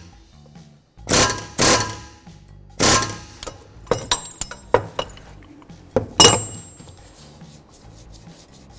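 Hammer blows on a fan clutch wrench, tightening the fan clutch nut onto the water pump shaft: three sharp metallic strikes, then a few lighter taps and one more hard strike about six seconds in that rings briefly.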